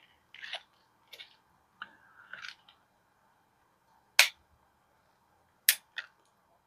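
Hard plastic blister pack of a memory card being pried at by hand: a few soft rustles and scrapes, then three sharp plastic clicks in the second half, as the pack resists opening.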